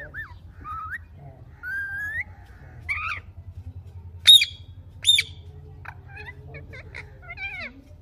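Indian ringneck parakeets calling: warbling, wavering calls at first, then two loud, shrill screeches about four and five seconds in, followed by quicker chattering calls near the end.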